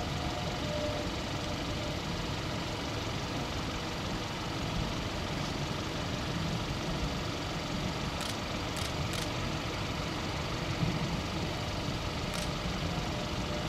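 Vehicle engine idling steadily, with a few faint short ticks about two-thirds of the way in.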